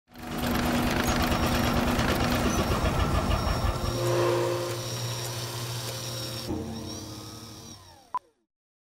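Cartoon machinery sound effects: dense clattering mechanical noise with a motor running, settling into a steadier low hum about four seconds in. It then winds down with falling whistling tones and ends on one sharp click just after eight seconds.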